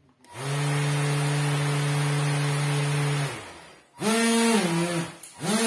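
Small electric motor and propeller on a homemade RC air car spinning up and running at a steady whir for about three seconds, then winding down. Two shorter bursts follow near the end, the first dropping in pitch.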